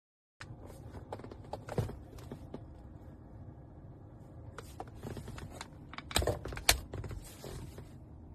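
Handling noise: scattered small clicks and knocks of an object being handled, the loudest a sharp knock about two seconds in and a pair of knocks just past six seconds in.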